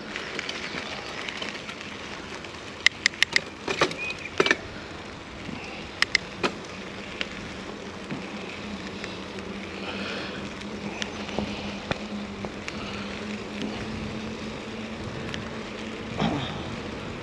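Mountain bike being ridden on a trail: a steady rush of tyre and wind noise, with a run of sharp clacks from the bike about three to four seconds in and a couple more about two seconds later. A steady low hum comes in about six seconds in and stops shortly before the end.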